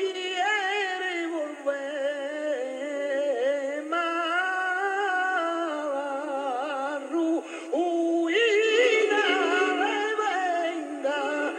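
Male flamenco singer singing long, wavering, heavily ornamented melismatic lines, with flamenco guitar accompaniment beneath. The old recording sounds thin, with no bass.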